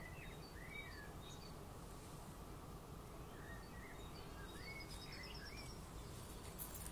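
Small birds calling over a steady, faint low background hum: scattered short chirps and slurred notes, with one rapid trill about four and a half seconds in.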